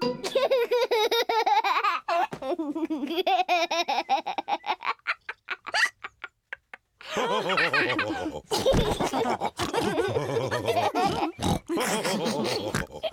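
Cartoon pig characters laughing together, several voices at once. The laughter breaks off briefly about six seconds in, then picks up again, fuller.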